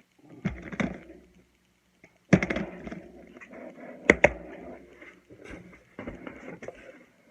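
Handling noise from unpacking puzzle cubes: rustling with several sharp knocks, as if plastic cubes and boxes are picked up and set down; the loudest knocks come a little over two seconds in and around four seconds in.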